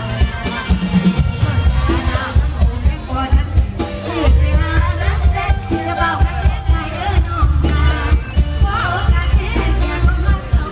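A live band performing a Thai Isan pop song, with a woman singing over a heavy, steady bass beat through a loud PA system.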